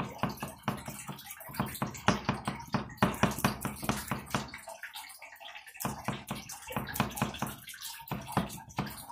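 Quick, soft, wet taps of a foam sponge dauber dabbing paint, loaded from a jar and patted onto a small wooden board, with short pauses between runs.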